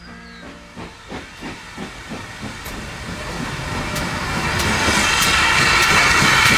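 Steam locomotive working, with about three chuffs a second and a hiss of steam, growing steadily louder.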